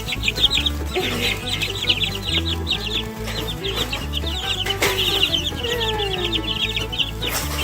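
A brood of two-week-old Barred Rock chicks peeping constantly in a dense, rapid chatter while they feed on cooked egg. Background music plays underneath.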